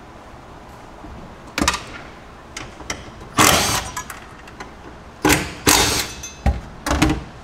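Cordless impact wrench running in about five short bursts, loosening the bolts of a factory cargo-floor bracket.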